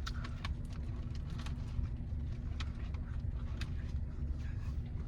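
Steady low rumble of a car's cabin with the engine running, under scattered small clicks and smacks of someone chewing food.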